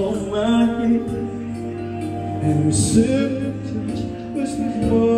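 Background music: a song with a singing voice over held notes.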